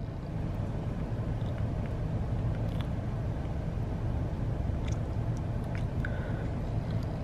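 Steady low machine hum heard from inside a parked car's cabin, with a few faint ticks.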